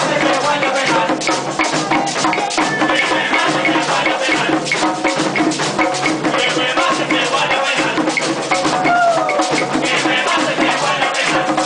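Puerto Rican plena played live on several panderos, hand frame drums with skin heads, beaten by hand in a fast, steady interlocking rhythm.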